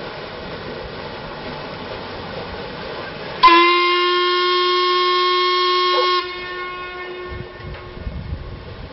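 Paddle steamer's steam whistle blowing one long, steady blast of about three seconds that starts abruptly and cuts off sharply, its note trailing away for a moment afterwards. Under it is a steady mechanical running noise from the steamer underway.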